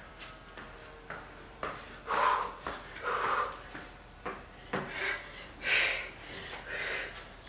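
A woman breathing hard through an exercise, with about half a dozen short, forceful exhales. Between them come light taps and thumps of hands and sneakers on a floor mat.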